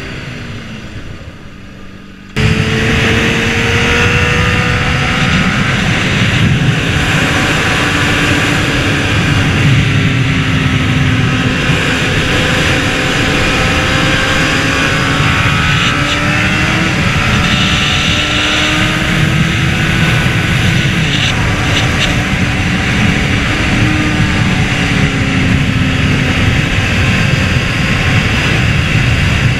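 Honda CBR600RR's inline-four engine at speed, its note rising and falling with the throttle through the bends, under heavy wind rush. For the first two seconds or so it is quieter, with the engine note falling, then the sound jumps up abruptly.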